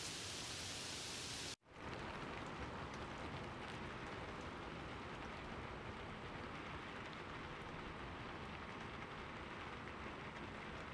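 Steady rainfall. About a second and a half in, the sound cuts out for an instant and resumes with less hiss, the join of two rain recordings.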